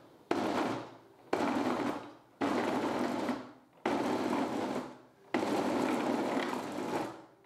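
A 1300-watt high-speed mixer grinder blending medjool dates, cacao powder and peanuts into a paste in its steel dry-grinding jar. It is run in five short pulses of about a second each, each starting sharply and fading as the motor spins down.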